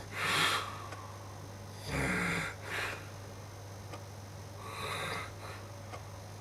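A sleeping person snoring: separate noisy snoring breaths, a loud one right at the start, another about two seconds in followed quickly by a short one, and a softer one about five seconds in. A steady low hum runs underneath.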